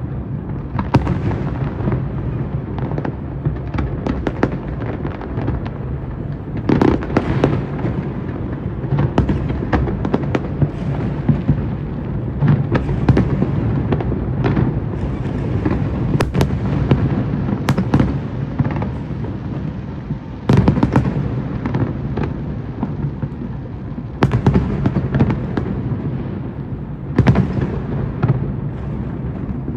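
A fireworks display going off without pause: a steady low rumble of bursts with many sharp cracks and pops scattered through it, several big bangs close together about seven seconds in and again in the last few seconds.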